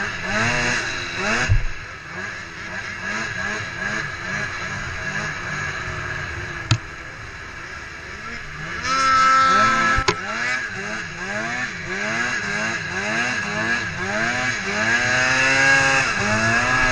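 Two-stroke snowmobile engine revved up and down over and over in short throttle blips, its pitch rising and falling about once or twice a second. A few sharp knocks sound along the way.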